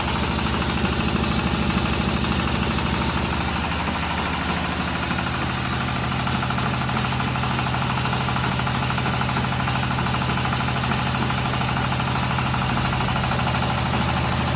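Fish-feed pellet extruder machine running steadily with a rapid, even pulse. Its tone shifts slightly about five seconds in.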